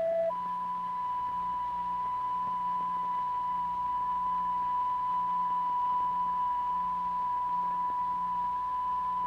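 Steady electronic sine-like tone near 1 kHz from a tone generator, the kind of driving tone used to excite cymatics experiments. It switches up from a lower tone just after the start, then holds one unchanging pitch over a faint low hum.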